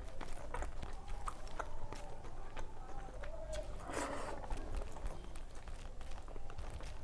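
Close-up eating sounds: chewing and biting with many short wet mouth clicks, and a denser burst of noise about four seconds in.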